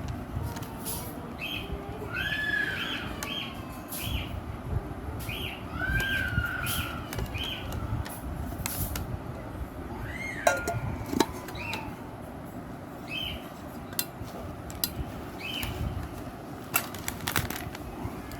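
Birds calling in the background: a few rising-and-falling whistles and short repeated chirps. Scattered sharp clicks and knocks and a low rumble run under them.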